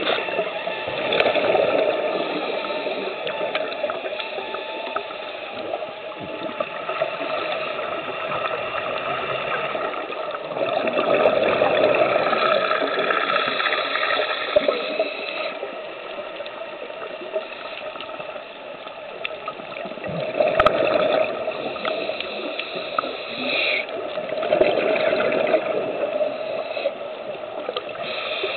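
Underwater water noise picked up by a diving camera: a steady muffled rush with louder gushing swells every several seconds.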